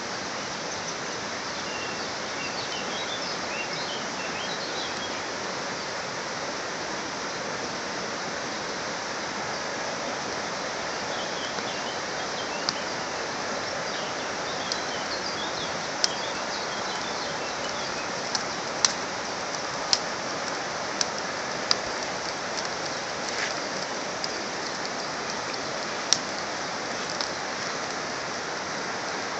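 Campfire of split wood burning well, a steady hiss of flames with sharp, scattered pops and cracks from the burning wood. Birds chirp faintly in the background.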